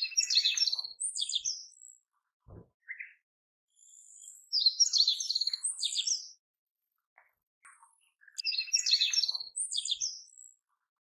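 Birdsong: the same short, high chirping phrase heard three times, about four seconds apart. A single soft low thump about two and a half seconds in.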